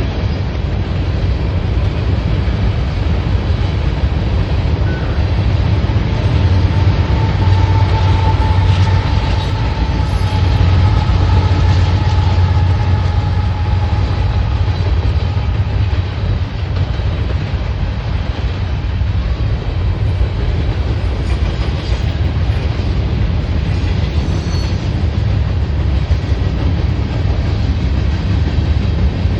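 Mixed manifest freight train rolling past, its cars and wheels on the rails making a loud, steady rumble. Between about seven and sixteen seconds in, a faint high wheel squeal rises over the rumble.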